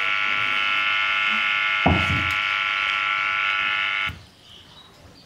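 A small 4-ohm speaker driven by an LM386 breadboard amplifier gives out a loud, steady buzz that cuts off abruptly about four seconds in. There is a short thump about two seconds in.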